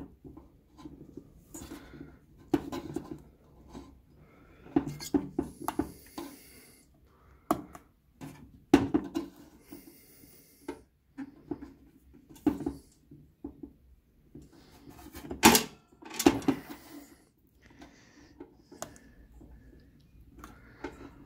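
Close handling noise as a rubber cap is pushed down over a diesel heater's glow plug: irregular soft taps, clicks and rubbing, with sharper knocks about nine and fifteen seconds in.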